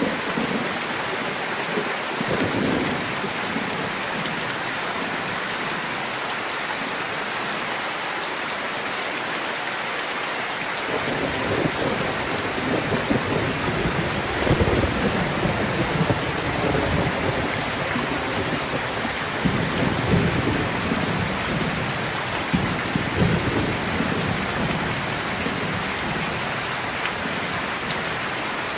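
Steady rain falling. From about eleven seconds in, a low rolling rumble of thunder rises and falls underneath it.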